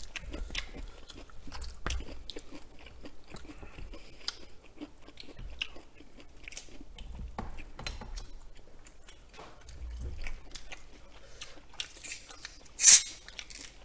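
Close-miked chewing and eating, with chopsticks and a wooden spoon clicking and scraping in a plastic food tray. About a second before the end, a plastic cola bottle is twisted open with one loud, short hiss of escaping gas.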